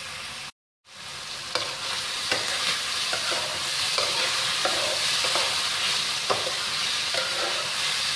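Chicken and mushrooms sizzling in hot oil in a wok while a metal spatula stirs them, scraping and clicking against the pan now and then. The sound cuts out briefly about half a second in.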